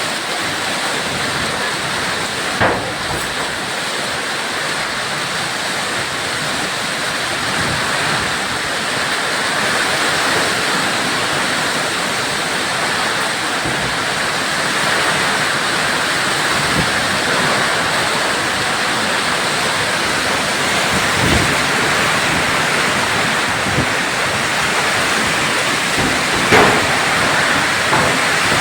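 Hailstorm: hail and rain pelting down in a dense, steady hiss, with a few sharper single knocks standing out.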